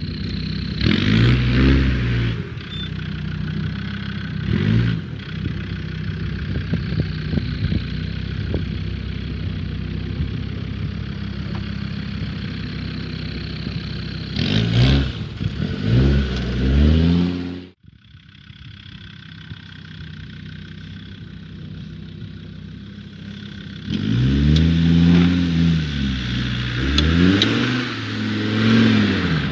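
Land Rover Discovery Td5's five-cylinder turbodiesel engine running off-road, the revs rising and falling in repeated surges as it climbs over rough ground. The sound cuts out abruptly a little past halfway, comes back quieter, then swells with more revving near the end.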